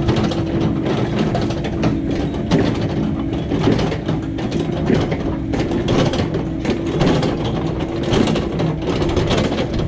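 Heavy earthmoving machinery running steadily, with a constant hum and dense metallic clanking and rattling.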